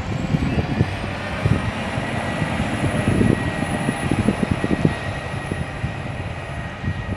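Class 711 diesel multiple unit running with a steady engine roar and thin high whines, wind buffeting the microphone.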